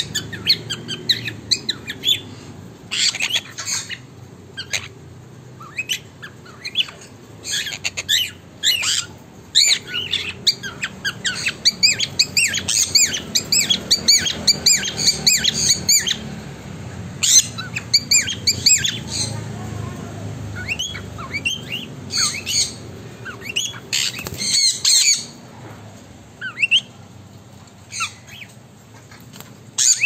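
A mixed cage of small parrots (sun conures, cockatiels and budgerigars) squawking and chirping in shrill clusters of rapid calls, with short lulls in between.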